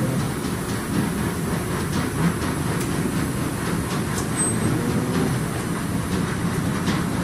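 Compressed sawdust block making machine running: a steady low mechanical rumble with faint clicks now and then.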